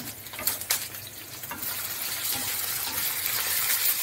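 Chopped ginger, garlic and green chillies sizzling in hot refined oil in a non-stick frying pan, with a couple of light clicks in the first second. The sizzle swells about one and a half seconds in as the mix is stirred with a wooden spatula.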